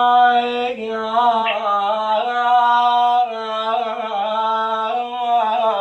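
A man singing unaccompanied in Iraqi style, drawing out one long held note that steps and wavers in pitch a few times.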